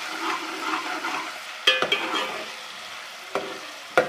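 Ground onion frying in hot ghee in a pot, sizzling steadily as it is stirred. The stirring spoon knocks sharply against the pot a few times, loudest about one and a half seconds in and again at the end.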